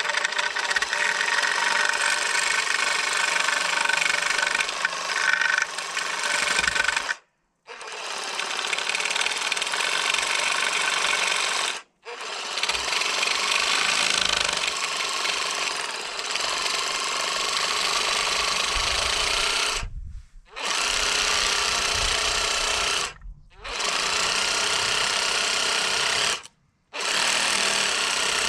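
Small handheld power carver with a short chain bar running at high speed and cutting into wood, a steady high-pitched whine that cuts off abruptly several times and starts again.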